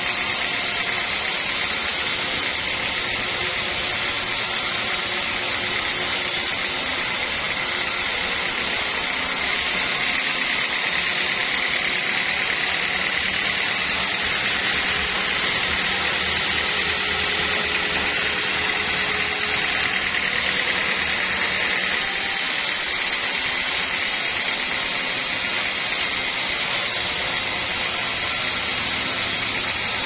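Band sawmill blade cutting lengthwise through a teak beam, a steady high-pitched sawing hiss over the machine's running motor. The sound shifts a little for a stretch in the middle and then returns to the same sawing.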